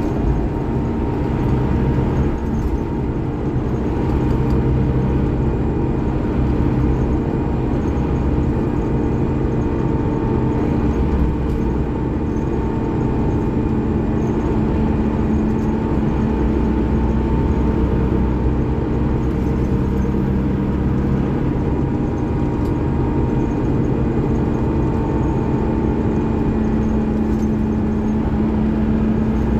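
Scania DC13 13-litre inline-six diesel engine of a K360IB bus running steadily under way, a continuous drone whose note shifts a little now and then.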